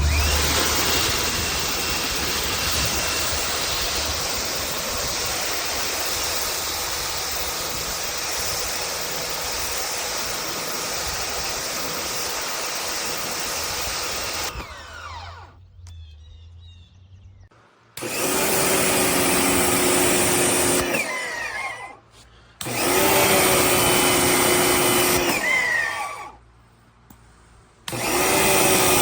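Electric pressure washer running with the hiss of its spray for about fifteen seconds, then stopping and starting again in short bursts of about three seconds each.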